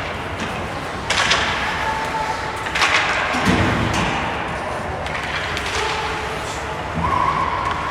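Ice hockey play in an arena: a steady rink and crowd din with two sharp knocks, about a second and a half apart, of puck or stick on the boards.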